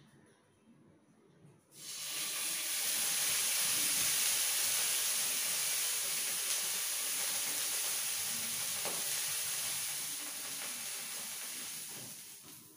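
Water poured into a kadai of hot oil and fried chillies: a sudden loud sizzling hiss starts about two seconds in, holds steady, and dies down near the end.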